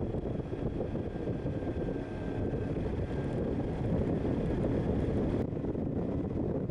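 Motorcycle on the move: engine running steadily under a heavy rush of wind buffeting the microphone. The upper hiss drops off abruptly about five and a half seconds in.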